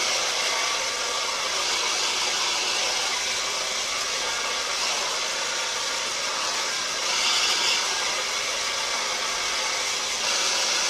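Lee Stafford Coco Loco Go Nuts hair dryer running steadily, a strong hiss of rushing air that swells slightly about seven seconds in.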